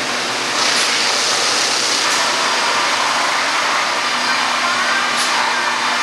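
Sawmill machinery running: loud, steady mechanical noise with a few brief knocks, and a steady hum joining about four seconds in.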